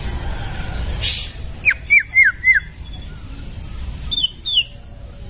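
White-rumped shama calling: a quick run of four short, clear whistled notes, then two higher whistled notes a couple of seconds later, over a low steady rumble.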